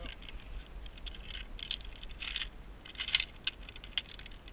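Steel carabiners and a zipline pulley trolley clinking and jangling against each other on the cable as they are handled. The sound is a string of sharp metallic clicks, bunched in several short clusters.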